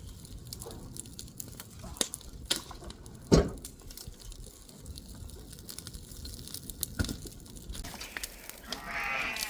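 Burn pile of wet green brush crackling and popping, with a sharp knock about three and a half seconds in.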